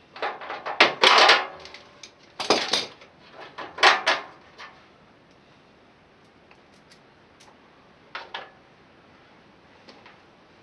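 Metal hand tools clinking and rattling against each other, in three or four quick bunches over the first few seconds and one more brief clatter later on.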